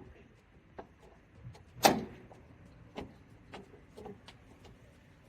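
Scattered small clicks and knocks of parts being handled and fitted by hand, with one louder knock about two seconds in.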